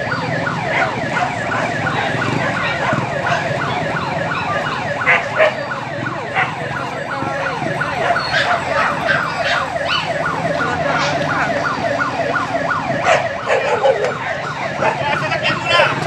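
Emergency vehicle sirens in a fast yelp, several overlapping, responding to a house fire.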